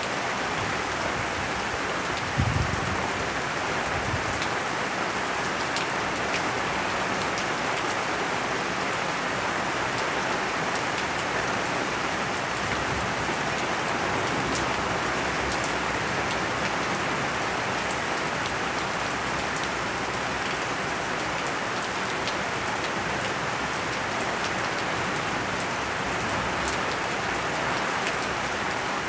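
Steady rain during a thunderstorm, an even hiss throughout, with one brief low thump about two seconds in.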